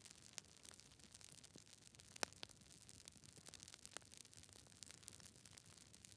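Fireplace fire crackling softly: irregular small pops and snaps over a faint hiss, with the sharpest pop a little over two seconds in.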